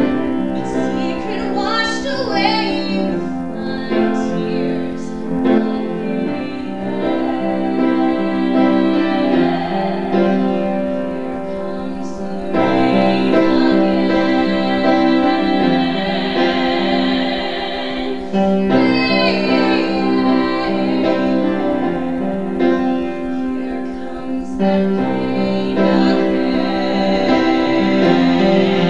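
Women singing a belted musical-theatre song to piano accompaniment, with long held notes and vibrato.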